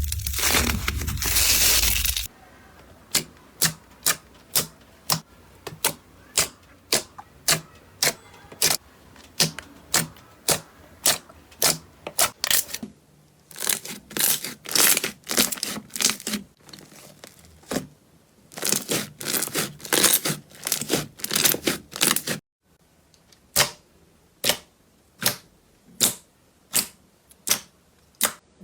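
Slime being pressed and poked by hand: a loud crunching for about the first two seconds, then a long run of sharp clicking pops, about one to two a second, sometimes in quick clusters.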